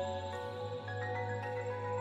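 Background music: calm ambient piece with soft sustained notes that change every half second or so over a steady low drone.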